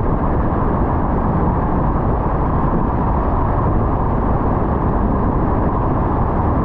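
Car driving on a wet road: a steady low rumble and hiss of tyres and road noise.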